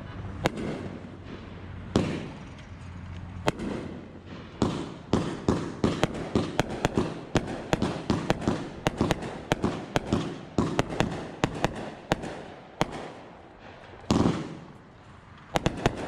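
Raccoon Fireworks consumer fireworks going off: a few separate sharp bangs, then a rapid, irregular run of cracks and pops for several seconds, a louder bang with a rumbling tail near the end, and a last couple of cracks.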